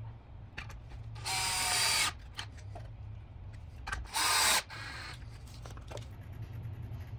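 DeWalt cordless drill driving drywall screws into pallet-wood boards: two short runs of the motor whine, the first a bit under a second long and the second about three seconds later and shorter, with light clicks and knocks between.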